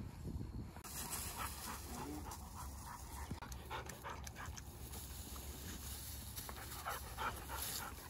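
Hunting dog panting in quick, repeated breaths, tongue out and hot from working the field on a very hot day.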